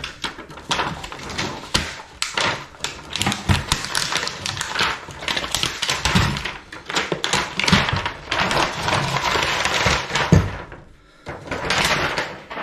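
Blue plastic shrink wrap being peeled and pulled off a lithium-ion e-bike battery pack, crinkling in dense, rapid crackles, with a brief lull shortly before the end.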